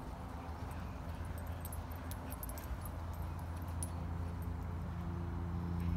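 Dogs romping on soft muddy ground, with light metallic jingling and clicks, like collar tags, in the first half, over a steady low rumble.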